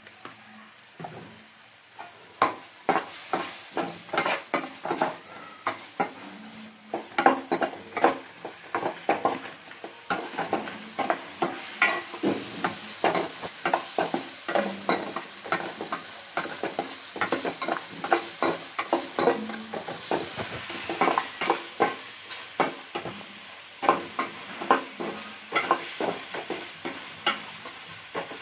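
A metal spoon stirring masala in a metal kadai, scraping and clicking against the pan about once or twice a second, over the sizzle of the onion-tomato mixture frying in oil. A higher hiss joins the sizzle about twelve seconds in.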